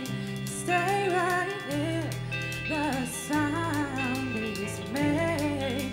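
Live band playing: a woman sings the melody over electric guitar, bass and drums, with hi-hat strokes running through.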